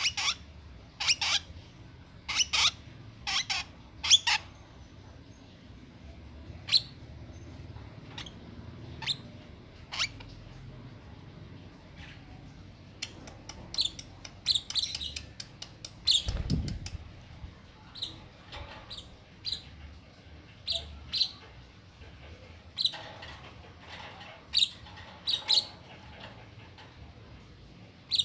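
A two-month-old lovebird giving short, sharp high-pitched calls, one after another in runs with brief pauses between. About sixteen seconds in there is a single dull thump.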